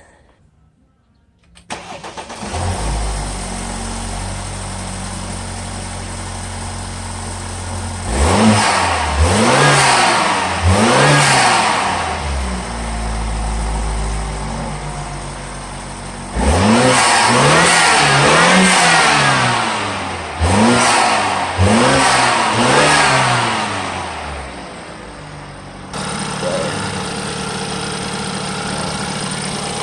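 BMW F30 328i's turbocharged 2.0-litre four-cylinder engine, just fitted with an aFe cold-air intake, starting about two seconds in, then idling and being revved in repeated short blips in two spells, with steady idle between them.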